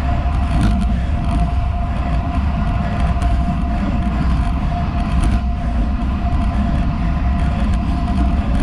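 Road bike rolling fast on asphalt, heard on a handlebar-mounted action camera: heavy wind buffeting and tyre rumble from the Roval Rapide CLX50 wheels, with a thin steady whine running under it and a few light ticks from road bumps.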